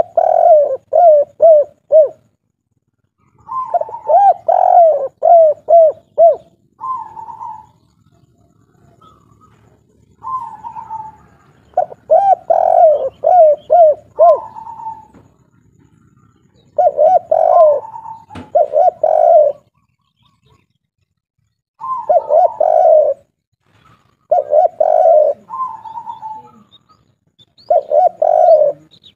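Spotted dove (derkuku/tekukur) of the 'kuk 3' song type cooing loudly, in repeated phrases every few seconds: a quick run of low coos, often followed by a slightly higher drawn-out note.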